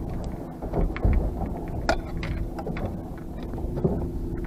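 Knocks and clatter as a fishing rod is handled and seated in a stainless steel rod holder on a boat, with a heavy thump about a second in and sharper knocks near the middle and end. Under them is a steady low engine hum and wind on the microphone.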